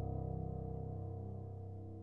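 Background music: one sustained keyboard chord, slowly fading.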